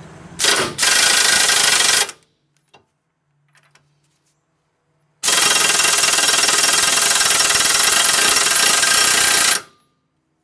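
Impact wrench hammering on the 32 mm front axle nut of a 2002 Mitsubishi Lancer: a brief blip, then a burst of just over a second, and after a pause of about three seconds a steady run of about four seconds that stops abruptly. The nut does not break loose, as the hub is free to turn with the brakes off.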